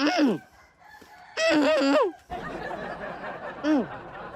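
Chicken squawking and crowing: a loud call at the start that drops sharply in pitch, a longer wavering call about a second and a half in, and a short falling call near the end.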